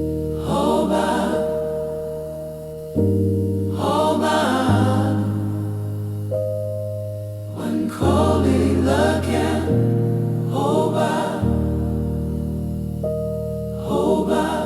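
Gospel music: a choir sings short phrases over held chords that change every three to four seconds.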